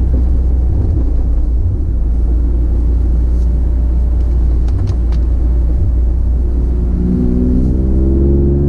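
2023 Toyota GR Corolla's turbocharged 1.6-litre three-cylinder running through its FI aftermarket exhaust, a steady low rumble; the engine note shifts near the end.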